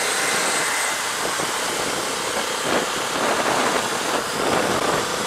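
Wind rushing over a motorcycle-mounted microphone at road speed, with motorcycle engines running underneath. The rush swells for a couple of seconds about halfway through.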